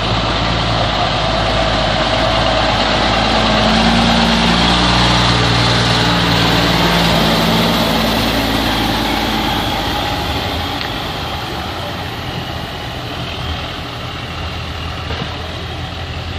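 Diesel semi tractor hauling a loaded lowboy trailer driving slowly past close by, its engine loudest about four seconds in and fading over the second half as the rig pulls away.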